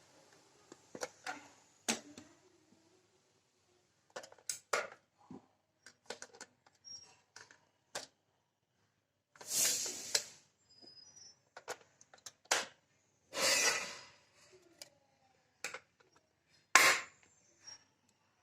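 Handling noises from an Omron HEM-7120 blood pressure monitor and its packaging while it is readied to switch on: scattered light plastic clicks and knocks, two rustling bursts of about a second each around the middle, and one sharp click near the end.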